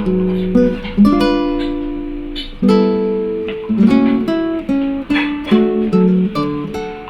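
Background music played on acoustic guitar: plucked and strummed notes, each struck and left to fade.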